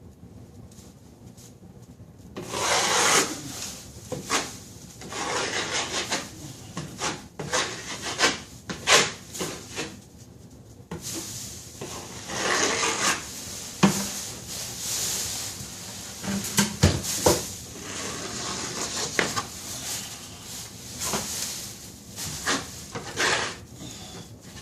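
Drywall taping knife scraping joint compound along taped ceiling seams, in repeated irregular strokes that begin about two and a half seconds in, with a few sharp knocks of the blade.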